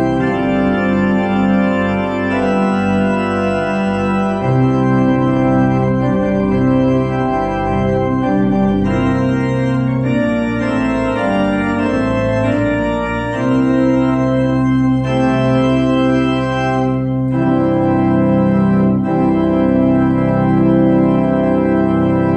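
Organ playing the closing postlude of a worship service: full, sustained chords held without decay, changing every second or two.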